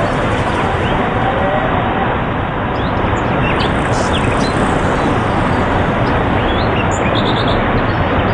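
Mountain stream rushing over boulders in a small cascade, a steady unbroken rush of white water. A few short, high bird chirps sound over it.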